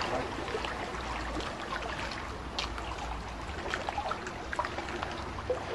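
Water gently lapping and trickling against a catamaran's hull, with scattered small splashes and ticks over a low steady rumble.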